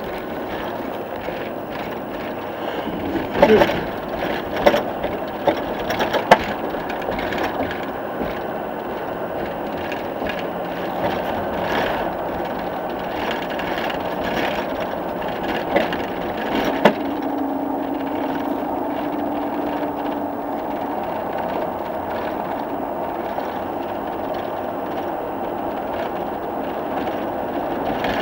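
Road and engine noise inside a moving vehicle's crowded cabin, a steady rumble with sharp knocks and rattles of gear or the body a few seconds in and again past the middle, and a brief low steady tone for a few seconds after that.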